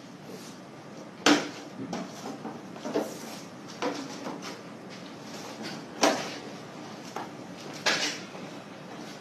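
Sharp knocks and clatters of kitchen cupboards and drawers being shut, about five over a few seconds, the loudest a little over a second in and about six seconds in.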